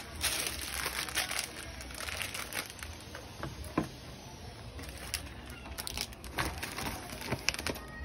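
Plastic wrapping crinkling and cardboard packaging rustling as parts are handled and lifted out of the box, with a few sharp clicks and knocks.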